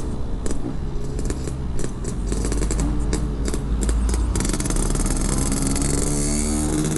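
Yamaha RX-King 135cc two-stroke single running through a Packing Power PK1 modified muffler while riding, with wind buffeting the microphone. A run of clicks and taps comes in the first four seconds, and the engine note rises in the last couple of seconds as it accelerates.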